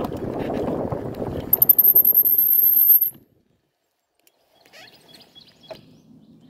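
Bicycle riding along a dirt trail: rumbling tyre and wind noise, with a thin, very high whine for about a second and a half partway through. The sound then cuts off suddenly to near silence, with only faint clicks afterwards.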